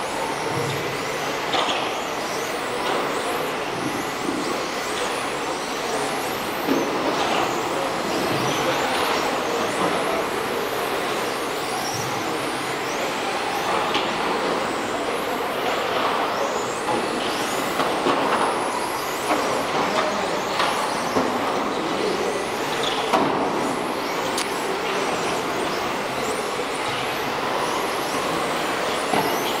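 Several electric radio-controlled racing cars lapping a carpet track, their motors whining, with the pitch rising and falling as they accelerate and brake. An occasional short knock is heard.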